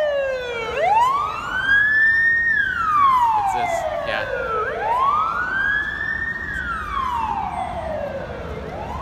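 Emergency vehicle siren wailing, sliding slowly up to a high note, holding it briefly, then sliding back down, about four seconds per cycle, over the low rumble of street traffic.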